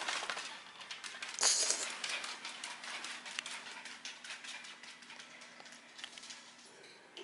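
Small dog's claws clicking and pattering on a hardwood floor as it walks about and away, many light irregular clicks. A short louder rustle about a second and a half in.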